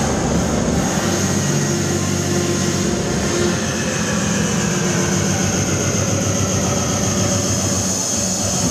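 Loud electronic dance music with a heavy, distorted bass line, played over speakers in a large hall.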